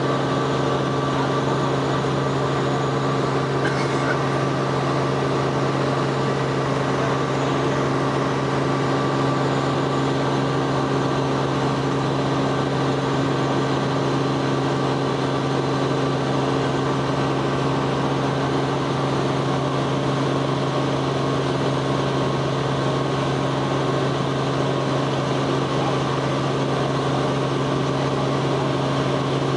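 Robinson R44 helicopter in flight, heard from inside the cabin: the steady drone of its six-cylinder piston engine and rotors, with a constant low hum under a wide wash of air noise.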